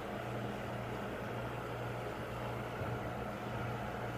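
Domestic cat purring steadily and continuously, close up.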